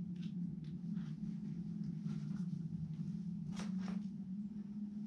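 A few short scuffs and scrapes of a climber's shoes and hands on a sandstone boulder during a low traverse, two of them close together past the middle, over a steady low hum.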